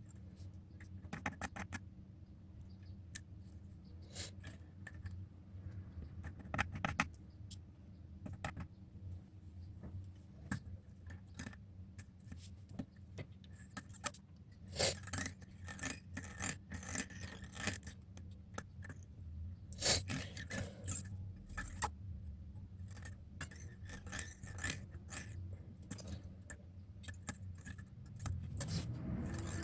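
Small tools scraping and clicking irregularly against a phone screen's glass as it is worked on, over a steady low hum. The scraping is busiest in the middle.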